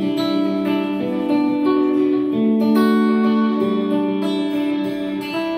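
Guitar played through a Watkins Copicat tape echo unit, its notes ringing on and overlapping as the echo repeats them. The echo is working.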